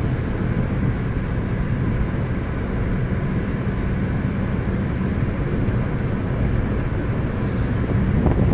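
Steady road and engine noise of a car cruising at highway speed, heard inside the cabin.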